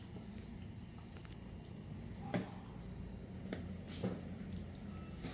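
Insects trilling steadily at a high pitch, with a few light clicks about two and a half, three and a half and four seconds in.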